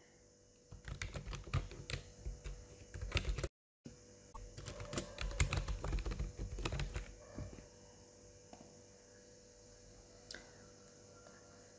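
Typing on a computer keyboard: two runs of quick key clicks with a short silent gap between them, then a few single clicks.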